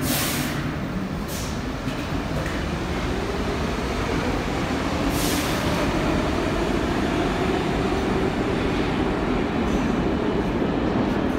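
New York City subway train running along a far track through an underground station: a steady rumble of wheels and motors with a wavering low drone. Two short hisses, one at the start and one about five seconds in.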